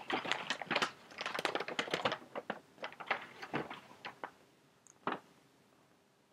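Quick, irregular clicks and rustles of objects being handled, dense at first and thinning out after about four seconds, with one last click about five seconds in.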